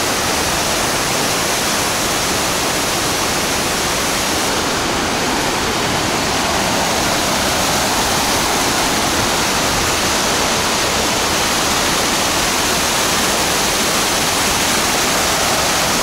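Waterfall and the mountain torrent below it rushing over boulders: a steady, loud rush of white water.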